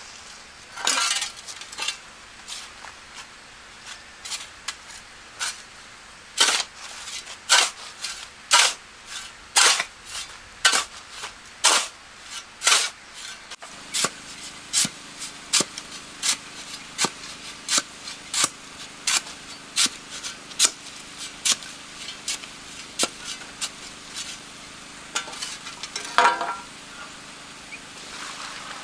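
Bricklaying with a metal trowel: irregular sharp clinks and taps on brick, about one or two a second, with a longer scrape of the trowel through mortar about a second in and again near the end. A faint steady hum joins about halfway through.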